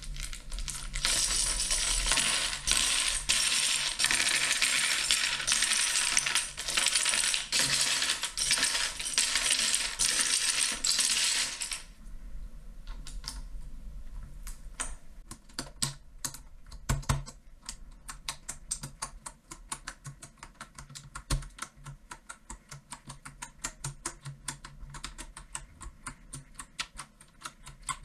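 A loud, dense clatter of small hard objects for about eleven seconds that stops abruptly. It is followed by the separate, uneven clicks of keys being typed on a mechanical keyboard.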